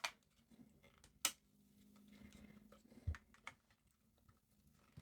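Small clicks and taps from handling the plastic casing and parts of a handheld CB radio while working a stuck part loose: a sharp click at the start, a louder one about a second in, a dull low knock about three seconds in, and a few lighter ticks.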